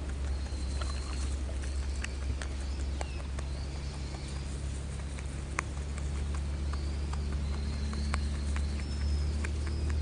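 A wild rabbit sneezing, which is a sign that it feels unwell: short, sharp sneezes scattered irregularly, the sharpest about halfway through. Small birds chirp faintly now and then over a low, steady rumble.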